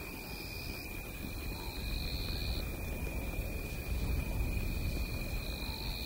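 Blue wildebeest grunting up close, low and rumbling, strongest through the middle of the stretch. Under it an insect keeps up a steady high whine while another buzzes higher in repeated stretches of a second or so.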